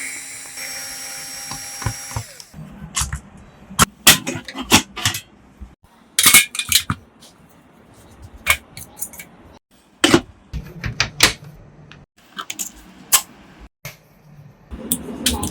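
A small power tool, such as an electric screwdriver, whirs steadily for about two seconds, then stops. After that come scattered sharp clicks and knocks of hard parts being handled and fitted during a PC build.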